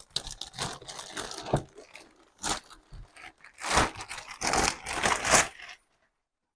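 Brown packing paper crumpling and tearing in irregular rustling bursts as a skateboard is unwrapped, stopping about a second before the end.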